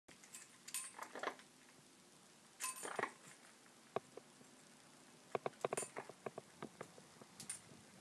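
Small metal bell toy jingling and clinking against the cage as a parrot holds and drags it in its beak: two short jangling bursts in the first three seconds, then runs of light clicks and taps.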